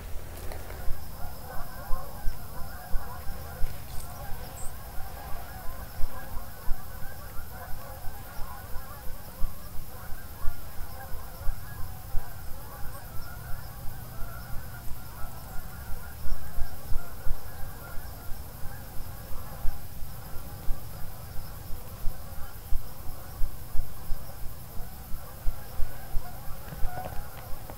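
A flock of geese honking and gabbling without pause, over a soft low pulse about two to three times a second.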